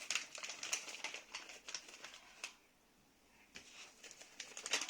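Plastic packaging crinkling and rustling in the hands in quick light crackles, broken by a dead silence of about a second near the middle.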